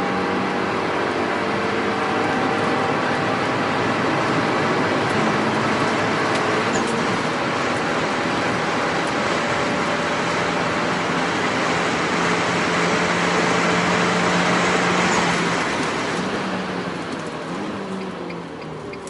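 Renault Mégane RS 225's turbocharged 2.0-litre four-cylinder with a Milltek downpipe and cat-back exhaust, running hard at speed over heavy wind and tyre noise. About sixteen seconds in, the engine note falls and the sound eases off as the car slows.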